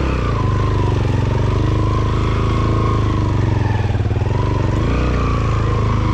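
Small Yamaha motorcycle engine running at low revs as the bike rolls slowly over a rocky dirt track. Its pitch dips about four seconds in and picks up again a second later as the throttle is eased and reopened.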